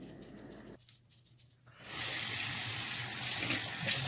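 Bathroom sink tap turned on about halfway through, with water then running steadily into the basin.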